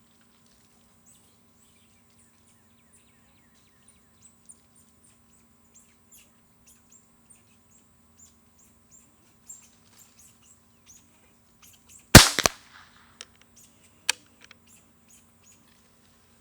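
Beeman QB Chief .22 PCP air rifle fired once about twelve seconds in: a sharp snap with a second crack a moment after, then a couple of small clicks. Birds chirp faintly throughout in short, high chirps.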